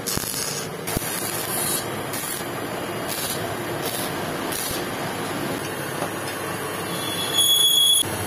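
Stick arc welding on the steel valve seat of a motorcycle cylinder head, running a bead around the seat so that it can be freed from the head: a steady hiss with repeated sharper surges. A short, louder whine with steady high tones comes near the end.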